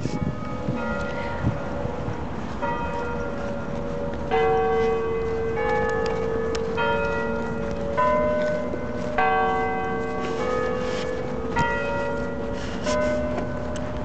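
Several church bells ringing together, a new strike about every second, each note ringing on under the next so that bells of different pitch overlap.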